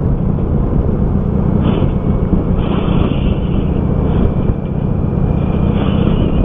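Steady rumble of a moving road vehicle, with wind noise and engine and road noise blended together; it cuts off abruptly at the end.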